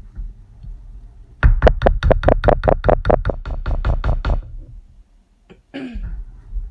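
A spatula knocking and scraping against the crock pot holding thick, freshly cooked soap batter, in a rapid run of about fifteen strokes at roughly five a second that lasts about three seconds. One more short knock follows near the end.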